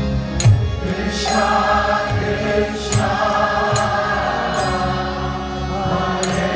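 Group kirtan: many voices chanting a mantra together over a harmonium drone, with percussion keeping a steady beat of sharp strikes a little more than once a second.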